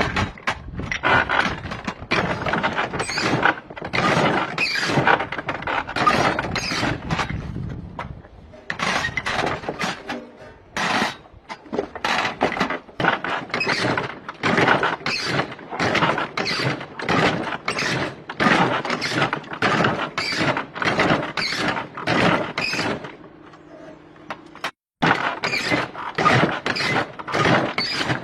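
Hand-operated ammunition belt-loading machine being cycled over and over, a metallic clack-and-squeak about twice a second as cartridges are pushed into the belt links, easing off briefly near the end.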